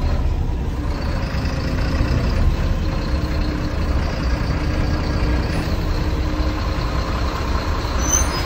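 Bharat Benz 2523 lorry's diesel engine running steadily at low road speed, heard from inside the cab as a deep, even drone.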